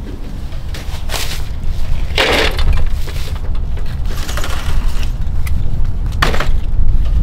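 Shrink-wrapped cases of plastic drink bottles being pulled from a delivery truck's shelves and set down, about four separate knocks and rustles of bottles and packaging, over a steady rumble of wind on the microphone.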